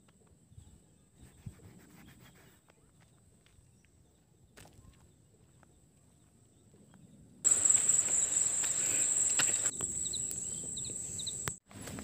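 Quiet outdoor ambience with a thin, high, steady insect drone. About seven seconds in it jumps suddenly to a loud, steady, high-pitched insect buzz, with a few short chirps near the end.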